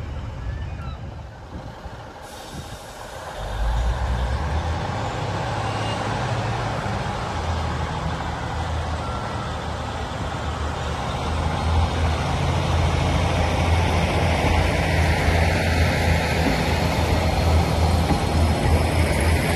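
ScotRail Class 156 Sprinter diesel multiple unit's underfloor Cummins diesel engines running as the train pulls away, a steady low engine note that comes in a few seconds in and grows louder from about halfway.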